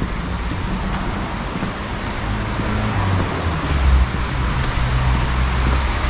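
Road traffic noise: a steady rumble and hiss, the low rumble growing stronger about four seconds in.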